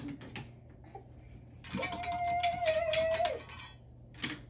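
An electronic toy sound effect from a battery-powered play toy: a steady held tone over crackly, fizzing noise, lasting under two seconds and starting about two seconds in.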